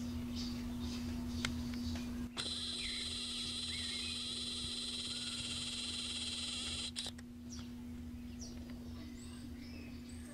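Camcorder zoom motor whining steadily for about five seconds as the lens zooms out, starting and stopping abruptly, over faint small-bird chirps.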